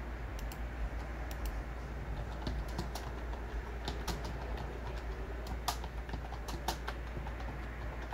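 Irregular, scattered clicks of typing on a computer keyboard, over a low steady hum.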